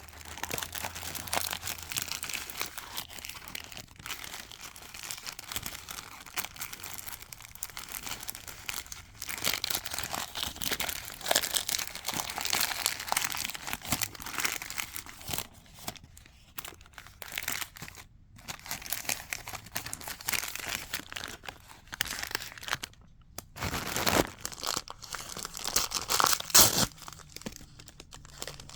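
Wrapping of a small advent calendar package being torn open and crinkled by hand, in irregular bursts with a few short pauses.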